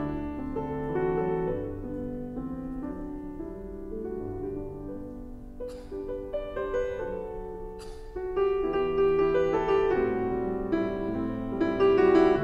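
Background piano music with slow, held notes that grows louder about eight and a half seconds in.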